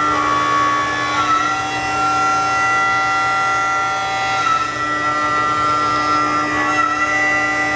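CNC router spindle whining steadily as a small end mill cuts Renshape tooling board, with higher cutting tones that shift pitch a few times as the tool changes direction around the mold outline.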